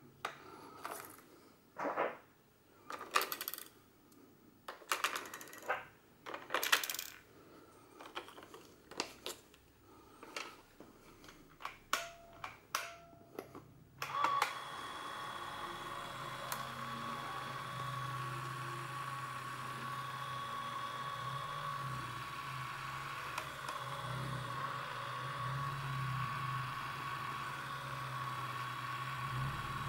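Batteries clicking and clacking against a plastic battery holder as they are fitted, about a dozen separate knocks. About halfway through, a steady mechanical whir with a held tone starts suddenly and runs on, most likely the Canon AF310XL-S Super 8 camera's film drive motor running.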